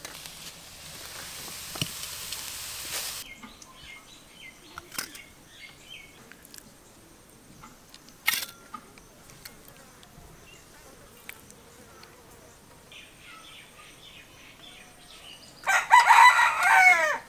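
Oil sizzling under greens frying in a wok, which cuts off about three seconds in. Then a quiet stretch with soft clinks of a ladle on steel bowls, and near the end a loud burst of chicken calls.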